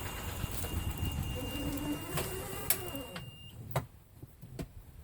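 Yamaha utility cart's engine running steadily. About three seconds in the sound drops quieter, leaving a few sharp clicks.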